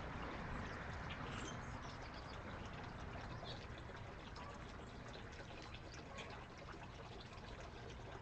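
Faint, short bird chirps scattered over a steady background hiss.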